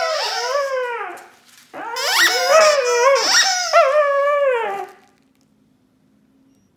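Corgi puppy howling and whining in long, wavering calls that slide down in pitch. There is one call, then after a short pause a longer run of rising-and-falling howls that stops about five seconds in.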